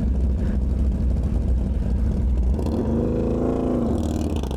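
Vehicle engine revving up and back down about three seconds in, over a steady low rumble.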